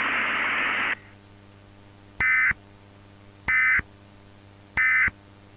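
Static hiss cuts off after about a second. Then come three short, loud digital data bursts about 1.3 seconds apart, the EAS SAME end-of-message (NNNN) tones that close an emergency alert, over a faint steady hum.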